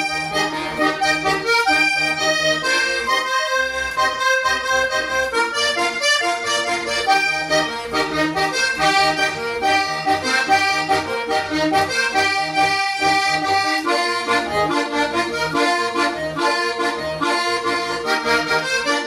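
Diatonic button accordion playing a vallenato son: quick, short melody notes on the treble buttons over a rhythmic, marked bass from the bass buttons, played without pause.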